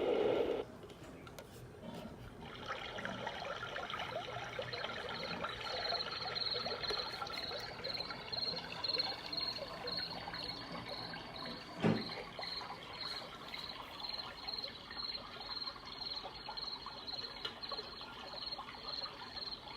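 Sound machine playing a running-water sound through its small speaker: an even trickling hiss, with a high chirp repeating about every two-thirds of a second. A single knock sounds about twelve seconds in.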